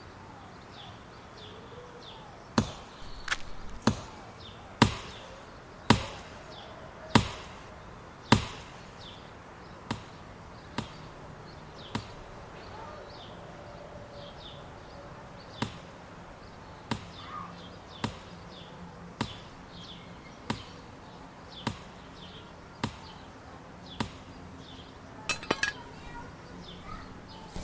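An axe chopping into a tree trunk: sharp strokes about one a second, the loudest in the first several seconds and softer ones later after a short pause. Birds chirp faintly behind.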